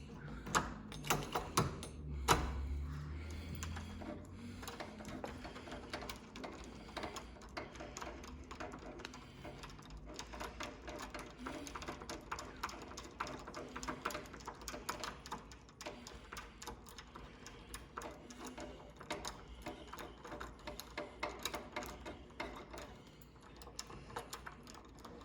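Rapid, irregular light clicks and rattles from removing an old door knob's hardware with hand tools.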